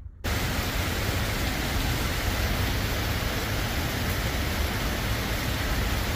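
Heavy rain pouring down in a steady, even hiss with a low rumble underneath, cutting in suddenly a moment in.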